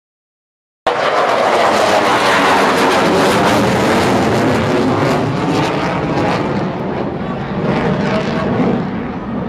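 Aircraft engine noise from an aeroplane flying past at an air show, loud and steady. It cuts in suddenly about a second in, after silence.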